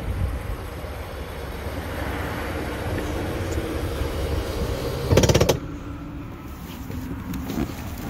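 Wind rumbling on the microphone. About five seconds in there is a brief burst of rapid rattling clicks, lasting about half a second.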